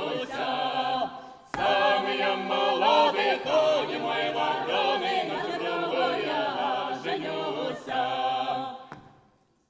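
Folk choir of men's and women's voices singing a song without instruments. The singing breaks off briefly about a second in and comes back in with a click, then fades out near the end.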